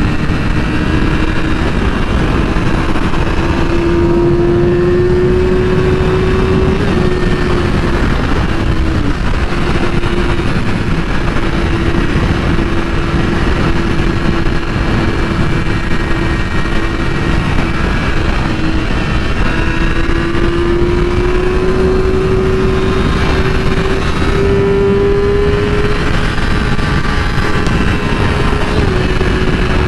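2008 Yamaha R6's inline-four engine running at high revs at a steady pace, its note slowly rising and falling and dipping briefly twice, about a third of the way in and near the end. Heavy wind noise on the rider's microphone runs under it.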